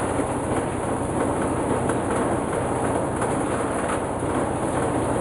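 Coconut husk decorticator running steadily: an even, dense mechanical rattle over a low hum.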